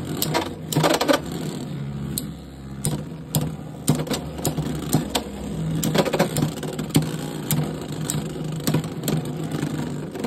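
Two Beyblade X spinning tops, Helm Knight and Arrow Wizard, spinning in a plastic stadium. They make a steady whir, broken by repeated sharp clacks where they make contact.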